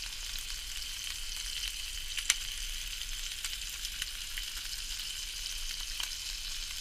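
Trout and frog legs frying in hot oil in a pan: a steady sizzle with scattered crackles and one sharp pop a little over two seconds in.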